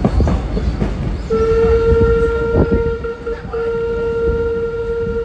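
A locomotive sounding one long steady blast that starts about a second in, with a brief break in the middle, over the running rumble of the train.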